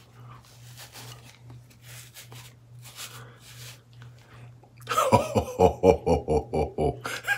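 A hand rubbing and scrubbing through a thick beard, soft scratchy rustling strokes. About five seconds in, a man gives a deep, pulsing Santa-style "Ho, ho, ho" laugh, the loudest sound.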